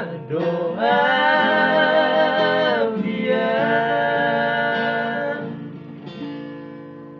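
Men singing together with an acoustic guitar, holding long drawn-out notes. The song trails off and gets quieter near the end.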